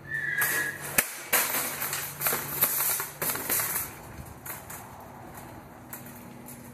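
Metal shopping cart being pulled from a nested row of carts, clanking and rattling hard for about four seconds, then rolling along with only light, occasional rattles. A short high tone sounds right at the start.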